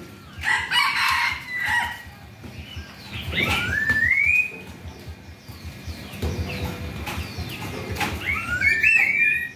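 A rooster crows once, a short, harsh crow about half a second in. Thin, rising whistled notes come a few seconds later and again near the end.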